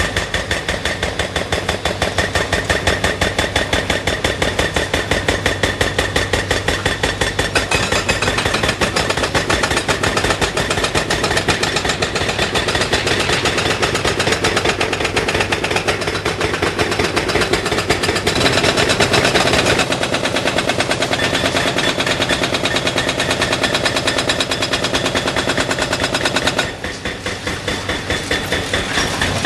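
Hydraulic breaker on a Caterpillar tracked excavator hammering a concrete bridge deck in rapid, steady blows, with the excavator's diesel engine running under it. The hammering gets a little quieter near the end.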